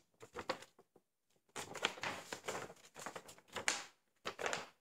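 A large paper poster rustling and crackling as it is handled and turned over, in irregular bursts that grow louder and denser about a second and a half in.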